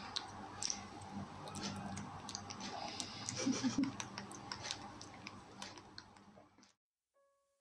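Irregular soft clicks and smacks of a baby macaque chewing banana close to the microphone, over faint room noise. The sound fades away a little before the end.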